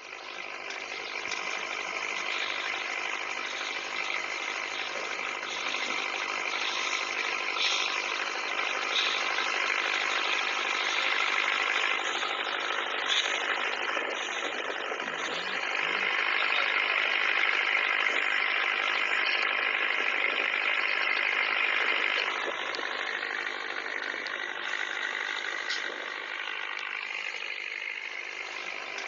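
Toy pop-pop boats (otok-otok steam boats) running: the rapid, steady putt-putt rattle of their small steam engines, somewhat quieter from about two-thirds of the way through.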